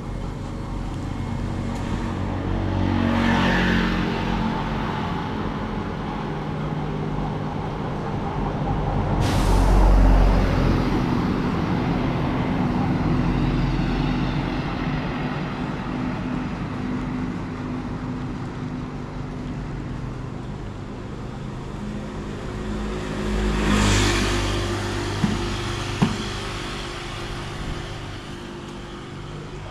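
Road traffic: motor vehicles passing close by one after another with their engines running, loudest at about three, ten and twenty-four seconds in. There is a sudden sharp noise about nine seconds in and two short clicks near the end.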